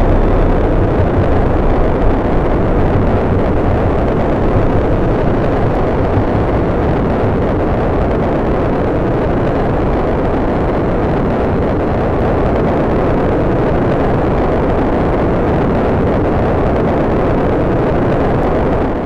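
Steady, loud rushing noise of a rocket motor in flight, used as a sound effect, cutting off at the very end.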